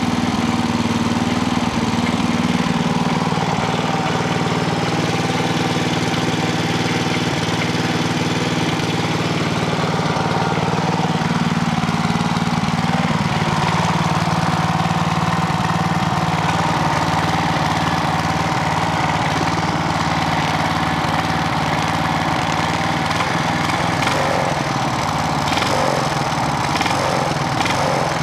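Briggs and Stratton engine of a Clarke portable generator running steadily at governed speed. Its freshly repaired governor is holding the revs, and the engine sounds pretty good.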